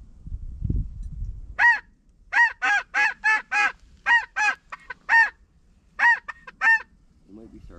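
Snow goose calling: about a dozen short, high, loud honks in quick runs, each rising and falling in pitch. They start about a second and a half in, with a short pause near the end of the series. A low rumble comes before the honks.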